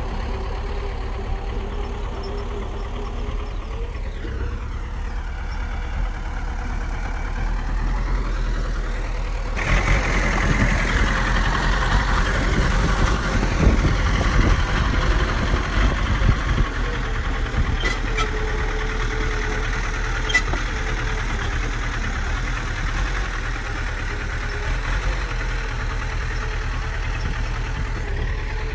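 Heavy diesel earthmoving machine engine running steadily. About ten seconds in, the sound turns suddenly louder and rougher for several seconds, as if under load, then settles back to a steady run.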